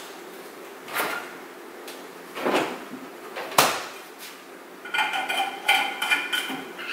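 Kitchen clatter from handling a thermos and dishes on the counter: a few separate knocks and clinks, the sharpest about three and a half seconds in. In the last two seconds comes a quick run of short, high-pitched squeaky tones.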